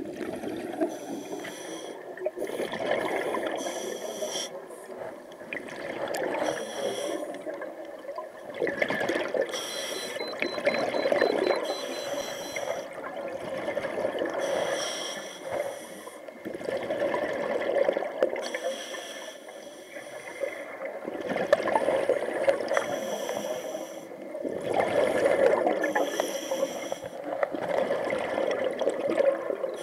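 Scuba diver's regulator breathing underwater: a hissing inhale, then a burbling rush of exhaled bubbles, repeating about every three to four seconds.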